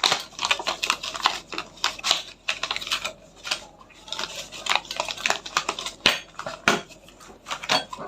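Irregular clicks and light clatter of hard parts being handled: the angle grinder's cutting blade and its small washer being picked up and set down.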